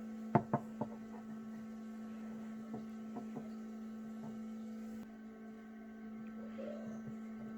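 Steady low electrical hum, one unchanging tone with fainter overtones, with a few light clicks of eggs being handled in the first second or so.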